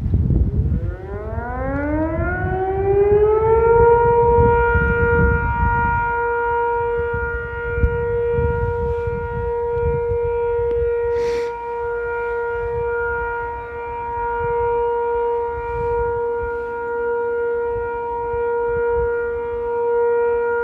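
Sentry 3V8-H outdoor tornado siren winding up, its pitch rising for about three seconds to a steady wail that holds while the loudness gently swells and dips.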